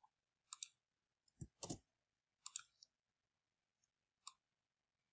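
Faint computer mouse clicks, some in quick pairs, with a heavier pair of keyboard key presses about one and a half seconds in as a capital C is typed.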